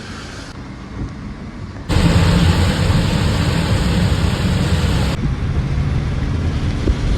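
A car driving, heard as a steady rush of road and wind noise with a low rumble. It turns abruptly louder about two seconds in and eases slightly about five seconds in.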